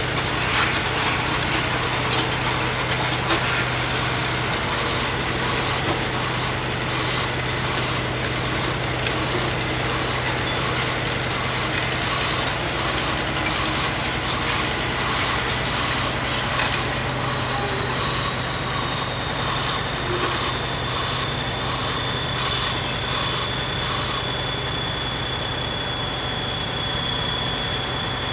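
RTG RG19T piling rig's vibratory hammer driving a steel sheet pile: a steady, loud mechanical hum with a constant high whine that drops slightly in pitch partway through.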